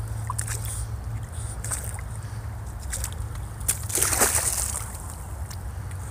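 Shallow creek water sloshing, with one louder splash about four seconds in, over scattered clicks and a steady low rumble.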